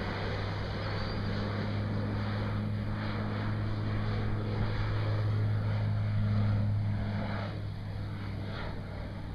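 Thrush 510 turboprop crop-dusting plane flying past with a steady low propeller drone. It grows louder to about six and a half seconds in, then fades as the plane moves away.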